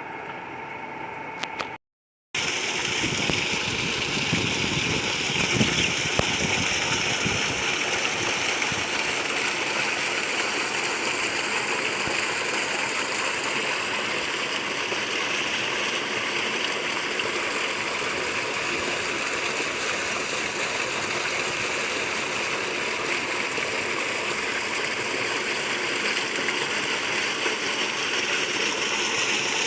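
Water rushing and gurgling steadily, an even flow that keeps going without a break after a brief dropout about two seconds in.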